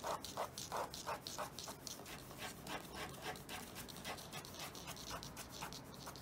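Ballpoint pen hatching on drawing paper held on a clipboard: quick, scratchy back-and-forth strokes, several a second, laying down shading lines. The strokes are strongest in the first couple of seconds and lighter after.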